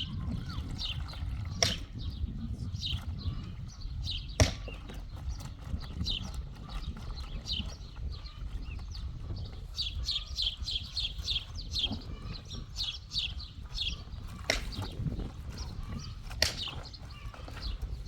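Small birds chirping: short, quick, falling chirps, coming in a fast run in the middle, over a steady low rumble, with a few sharp knocks.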